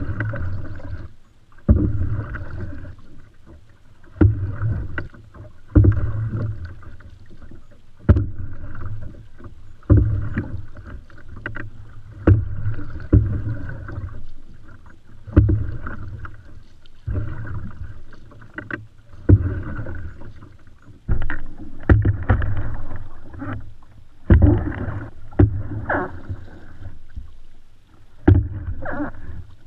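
Canoe paddle strokes in the water, about one every two seconds, each a sharp splash and swirl that dies away before the next.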